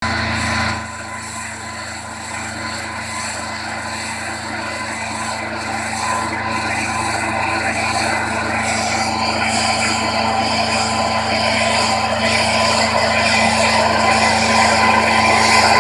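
Two-stroke engines of backpack motorized mist blowers, a Stihl SR 440 and a Cifarelli L3A, running steadily at working speed while spraying. The drone grows gradually louder.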